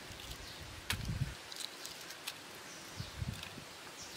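Shell of a grilled egg crackling as fingers peel it off, a run of small irregular clicks and crinkles with a couple of soft low bumps from handling, about a second in and again after three seconds.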